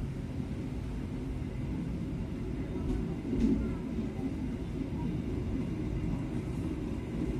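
Passenger train carriage rolling slowly, heard from its rear end: a steady low rumble of wheels on rail, swelling briefly about halfway through.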